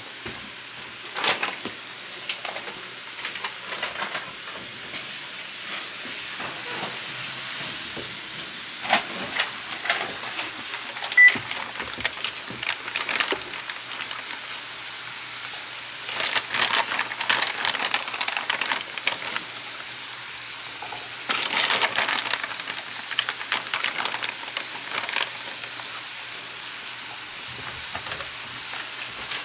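Mushrooms and red peppers sizzling in oil in a skillet, a steady hiss with small crackles. It gets louder and busier about halfway through and again about two-thirds through, as raw shrimp go into the hot pan.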